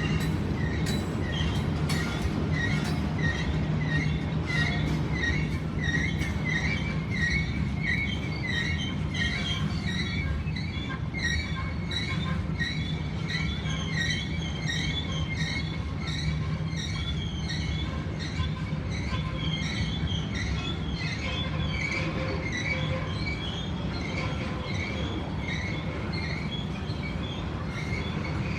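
Moving train: a steady low rumble with high-pitched wheel squeal that comes and goes in an even rhythm, about twice a second.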